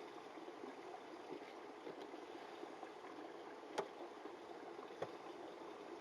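Faint, steady rasp of a 2000-grit diamond sharpening stone being drawn along a knife edge on a guided sharpening jig, with two sharp clicks of the stone or jig a little after halfway and again about a second later.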